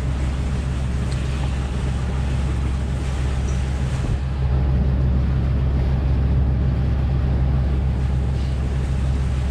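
Sailboat's auxiliary engine running steadily under way, a low even drone, with wind and water hiss over it; the sound grows slightly louder about four seconds in.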